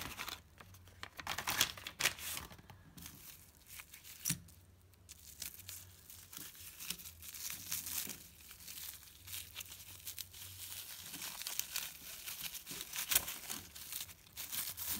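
Clear plastic wrapping crinkling and tearing as it is pulled off a stack of coins, in irregular rustling bursts that are loudest near the end.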